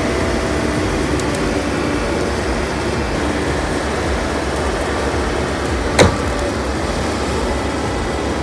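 A heavy machine's engine running steadily, with one sharp click about six seconds in.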